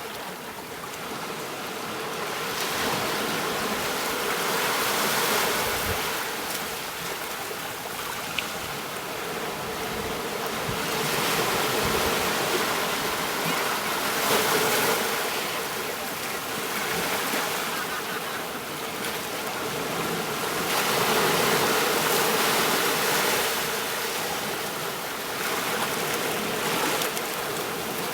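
Surf breaking on a beach, a steady wash of water that swells and fades in slow surges every several seconds.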